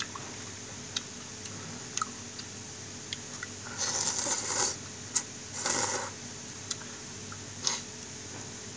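A person slurping noodles: a long slurp about four seconds in and a shorter one near six seconds, between chewing sounds and scattered short sharp clicks and smacks.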